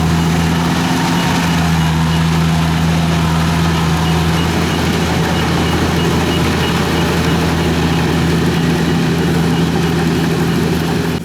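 Kubota DC-70 combine harvester's diesel engine running steadily under load, a loud even drone.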